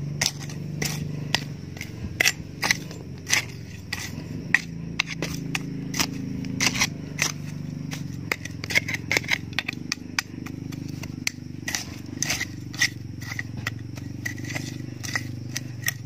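A machete blade chopping and scraping into dry, lumpy soil, working it over scattered fertilizer granules: irregular sharp chops, one or two a second, thicker in the middle, over a steady low hum.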